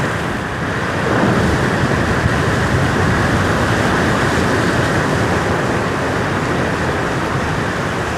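Heavy ocean surf from a big swell: a steady rushing wash that grows louder about a second in.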